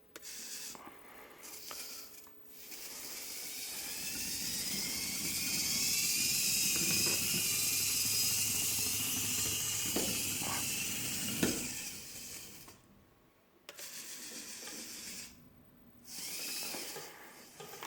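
Small continuous-rotation servo motors of a 3D-printed rover whining through their gears as it drives, in stretches that start and stop; the longest runs for several seconds with the pitch drifting slightly, and a few short knocks come near the end of it.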